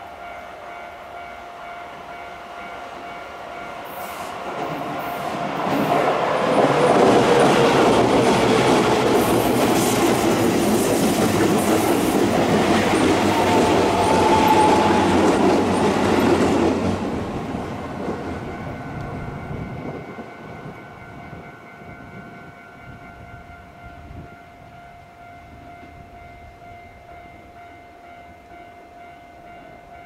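Japanese level-crossing warning bell ringing steadily while a Keisei 3000-series commuter train passes, loud from about four seconds in and fading away by about twenty seconds. The bell keeps ringing after the train has gone, the crossing held closed for more trains coming through in succession.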